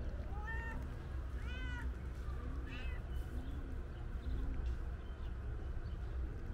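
Cat meowing three times in quick succession in the first three seconds, each short meow rising then falling in pitch.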